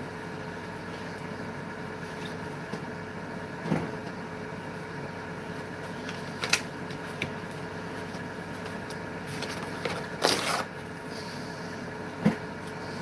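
Steady room hum with a few brief knocks and handling sounds, the loudest a double knock about ten seconds in.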